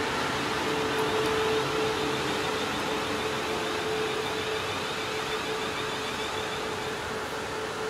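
South Western Railway electric multiple-unit train running past at speed: a steady rush of wheels on rail with a constant hum, easing slightly near the end as the last carriages go by.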